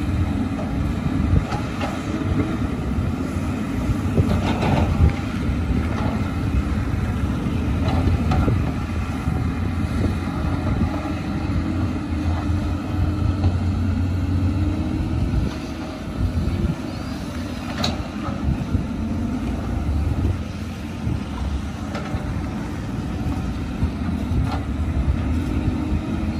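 Diesel engines of heavy earthmoving machines running steadily under load, chiefly a Caterpillar 320C hydraulic excavator digging wet mud, with a few short knocks scattered through.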